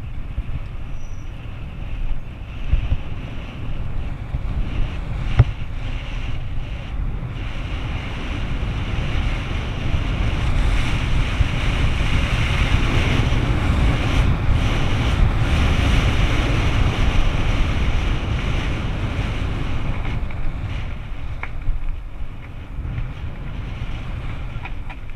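Wind noise buffeting the microphone during a downhill mountain-bike descent, a steady low rumble that swells louder through the middle and eases near the end. There is a sharp knock about five seconds in.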